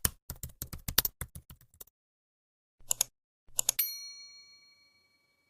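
Rapid computer-keyboard typing clicks for about two seconds, then two short swishes and a single bell ding that rings out and fades.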